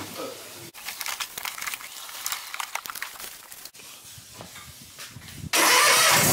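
Light scattered clicks and rustling, then about five and a half seconds in a zero-turn riding mower's engine comes on suddenly and runs loudly and steadily.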